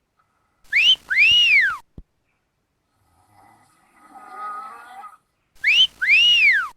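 A person snoring with a whistle on each out-breath: a short rising whistle and then a longer one that rises and falls. Between the two whistles comes a quieter rasping snore on the in-breath.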